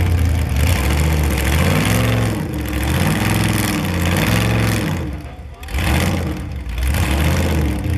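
Ultra4 rock-racing car's engine blipped again and again in short rev bursts as it crawls over boulders, the pitch rising and falling several times with a brief lull a little past the middle.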